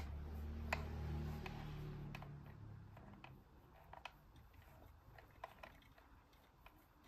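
Light, scattered clicks and taps of small plastic miniature toy kitchen pieces being handled, with a low hum during the first three seconds that then fades.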